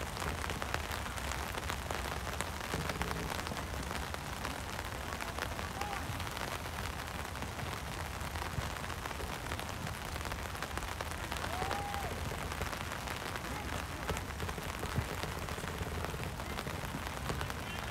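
Steady rain falling, with many small ticks of drops landing close to the microphone.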